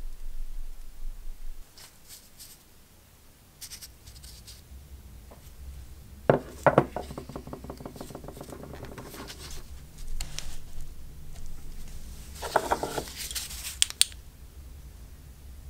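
A metal tool scraping and clinking against a Black and Decker D500 drill's aluminium motor housing as caked dust is cleaned out. There are two louder metallic clatters, one about six seconds in that rings on for a few seconds and another near thirteen seconds.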